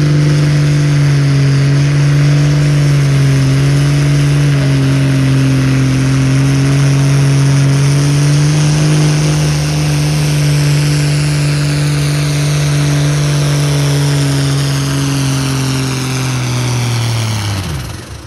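Diesel engine of a White pulling tractor running loud and flat out under load as it drags the pulling sled, one steady hard note held for most of the pull. Near the end the throttle comes off and the engine's pitch falls away quickly.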